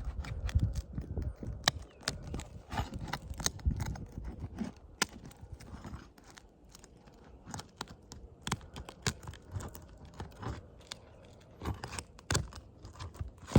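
Asphalt shingle being pried loose from its sealant strip: irregular scraping, crackling and sharp clicks as the seal breaks, busiest in the first few seconds and quieter in the middle.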